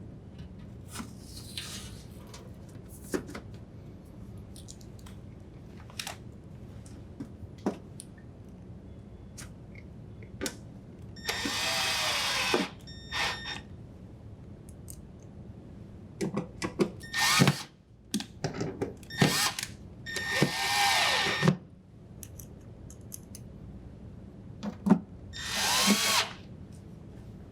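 Drill driver with a number 2 Phillips bit driving screws into a refrigerator's back panel. There are three main runs and one short burst, each with a motor whine whose pitch rises and then falls, and small clicks and handling knocks between them.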